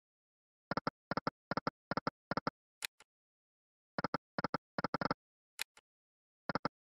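Online fruit slot game's reel-stop sound effects: five short pitched double clicks in quick succession, one as each reel stops, followed by a sharper high tick. The pattern plays twice, with a third run starting near the end.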